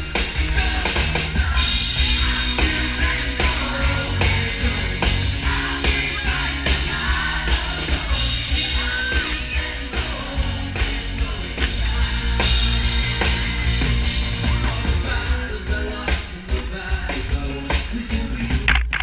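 Live pop-rock band with a male lead singer playing through a concert PA, with a strong bass line.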